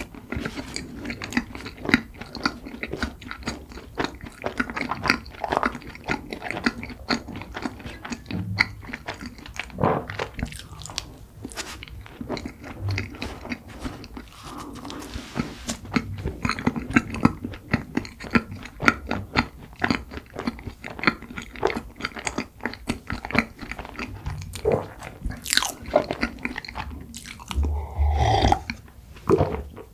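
Close-miked eating of cream-filled red bean buns: a person biting and chewing, with a steady run of small, irregular mouth clicks and crackles.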